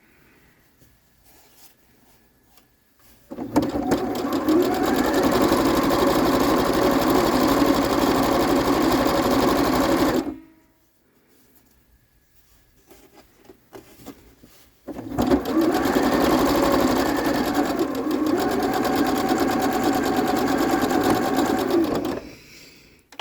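Sewing machine stitching a seam in two runs of about seven seconds each, with a pause of a few seconds between them while the fabric is handled.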